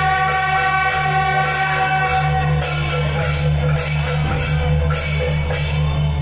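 Beiguan processional music: a suona reed horn holding long notes over drums, with a steady beat of cymbal crashes.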